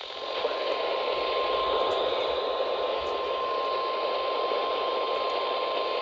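NOAA Weather Radio warning alarm tone: a single steady tone of about 1050 Hz over radio hiss, signalling that a new warning broadcast is about to begin.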